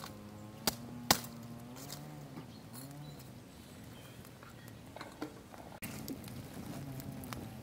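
Farm animals, likely sheep or goats, calling faintly in the background, with two sharp knocks close together about a second in and a few lighter clicks later on.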